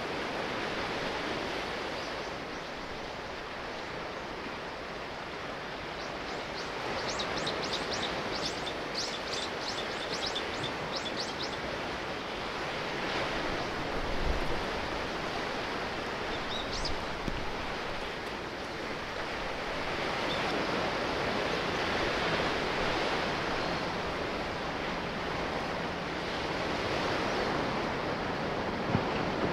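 Sea waves washing in, the rush swelling and ebbing every few seconds. From about six seconds in comes a run of short high chirps, about three a second for some five seconds, and one more chirp follows a few seconds later.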